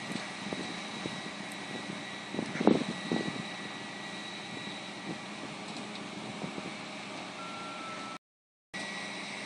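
Fire truck engine running steadily, with a cluster of sharp knocks about two and a half to three seconds in. The sound cuts out for about half a second near the end.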